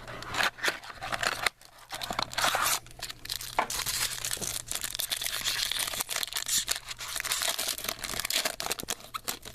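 A trading-card pack wrapper being torn open and crinkled by hand, a dense run of tearing and crackling strokes that is densest in the second half.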